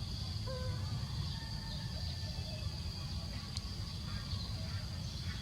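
Outdoor forest ambience: a steady high insect drone over a low rumble, with a few faint short bird whistles and a single click about three and a half seconds in.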